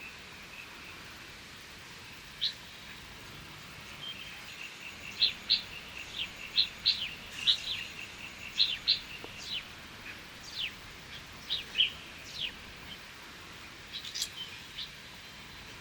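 A bird calling in a loose run of short, sharp chirps, many of them quick falling notes, thickest through the middle and thinning out near the end.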